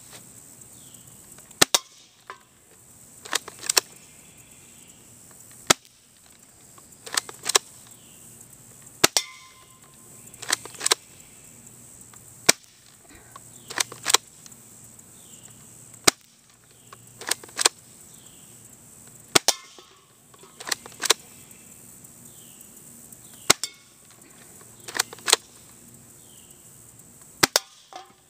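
Airsoft pump-action shotgun firing repeatedly, a sharp snap about every three and a half seconds, with a quick double clack of the pump being racked between shots.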